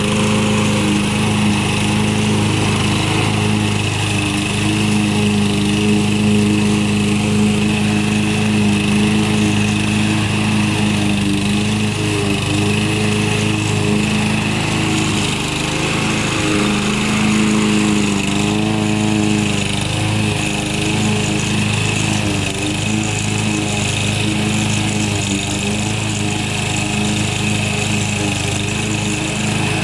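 Briggs & Stratton 550 EX 140cc single-cylinder engine on a walk-behind rotary lawn mower, running steadily while cutting wet grass. Its pitch wavers and dips a few times around the middle, then settles again.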